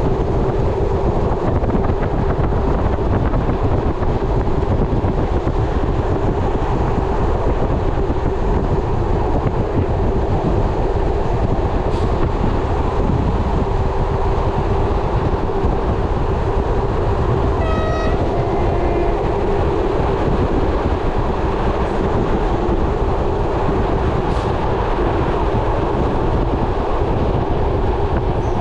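Train running on rails, heard from aboard: a steady rumble of wheels on track with a constant hum under it. A brief high tone sounds once, about two-thirds of the way through.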